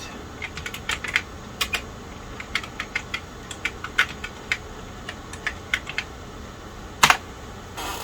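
Keys being typed on the Tandy 1000 EX's built-in keyboard: irregular clicks, sometimes several a second, with a louder double click about seven seconds in.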